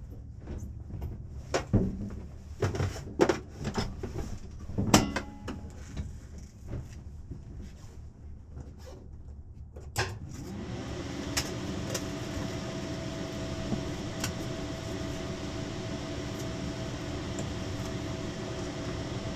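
Scattered clicks and knocks of switches and handling in a light aircraft's cockpit, heard through the intercom. About ten seconds in, a sharp click is followed by a steady hum with a constant whine that carries on.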